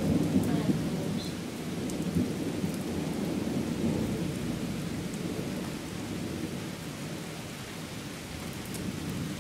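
Thunder rumbling, loudest at the start and slowly dying away, over steady heavy rain.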